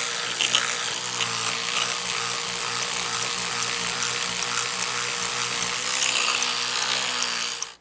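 Electric toothbrush running, a steady motor buzz with a high hiss, that cuts off suddenly near the end.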